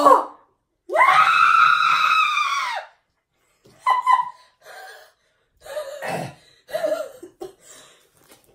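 A woman screams once, a held cry of about two seconds starting about a second in, followed by short broken exclamations.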